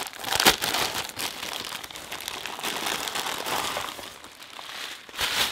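Plastic packaging and tissue paper crinkling and rustling as a package is unwrapped by hand, with a sharper crackle about half a second in.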